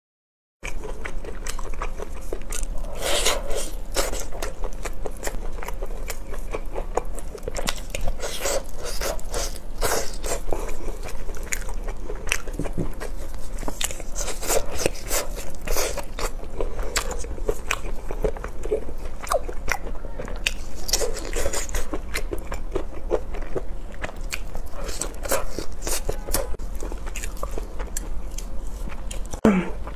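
Close-miked eating sounds: a person biting, tearing and chewing saucy braised meat off the bone. Many quick, irregular mouth clicks and crunches run over a steady low hum, starting about half a second in.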